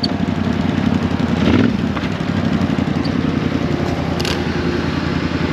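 Quad (ATV) engine running steadily under throttle, a dense, even engine pulse.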